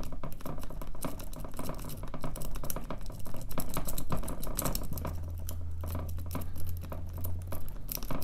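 A Sparrows twin peak rake being scrubbed in and out of a Schlage padlock's five-pin cylinder, making a fast, irregular stream of small metallic clicks as it rakes the pins. A low hum comes in about five seconds in and stops near the end.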